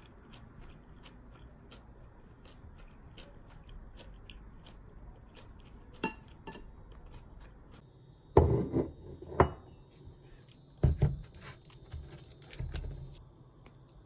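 Kitchenware clattering: a few sharp knocks and clinks, loudest about eight and a half seconds in, after several seconds of faint light ticking.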